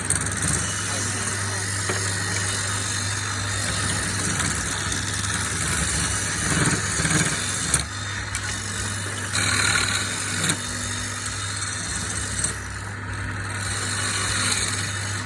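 A motor-driven machine running steadily: a constant low hum with a steady hiss over it, dipping briefly about halfway through.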